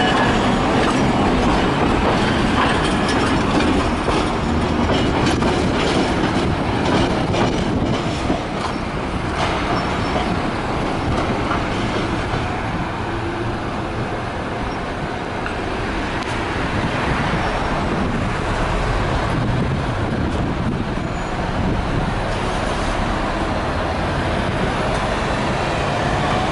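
Okayama Electric Tramway streetcar running along street track, heard from aboard: steady running noise of wheels and motors, with a run of clacks as the wheels cross rail joints and points about six to nine seconds in.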